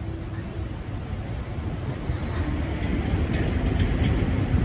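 Freight train boxcars rolling along the track: a steady low rumble with a few light wheel clicks about three to four seconds in, growing louder toward the end.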